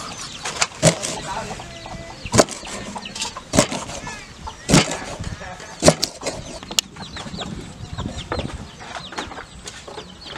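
A knife chopping through a fish onto a wooden chopping board: a series of sharp knocks a little over a second apart, cutting the fish into pieces. Chickens cluck in the background.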